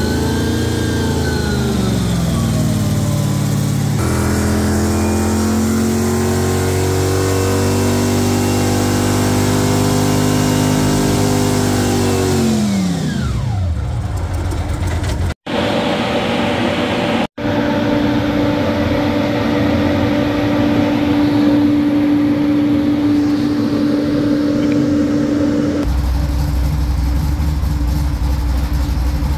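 Stock car engine running on a rolling road. It revs briefly, then climbs slowly in pitch under load and falls away steeply about thirteen seconds in. After two abrupt cuts it holds a steady speed, then drops to a low idle near the end.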